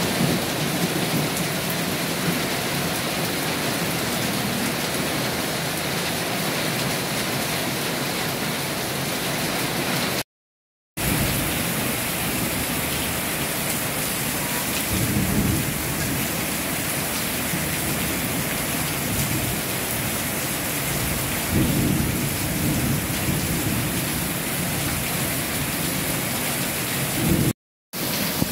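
Heavy rain pouring steadily onto a fish pond's water, roofs and paving, with low rolls of thunder twice, about halfway through and again some seconds later. The sound drops out to silence twice for under a second.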